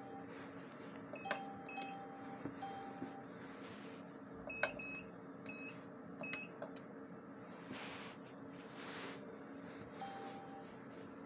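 ATM keypad presses, each a sharp click with a short high electronic beep: two about a second in, then a quicker run of about five between roughly four and a half and seven seconds, with a few softer lower-pitched beeps. The machine's steady low hum runs underneath.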